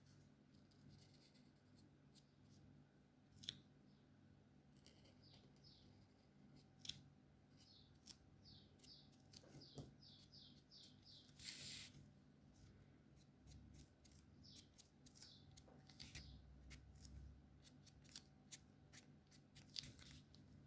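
Faint scratching of alcohol marker tips colouring on paper: runs of quick back-and-forth strokes, about four a second near the middle, with scattered light clicks and a short rustle.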